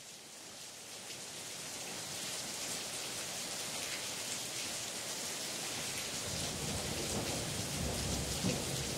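Rain falling, fading in over the first couple of seconds to a steady hiss, with a low thunder rumble coming in about two-thirds of the way through.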